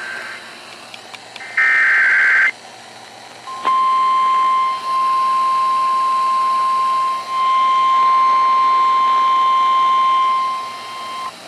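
NOAA Weather Radio emergency alert: the last of the three short, buzzing SAME data-header bursts about two seconds in, then from about four seconds in a long, steady, single-pitch warning alarm tone that signals a warning-level alert, here a severe thunderstorm warning.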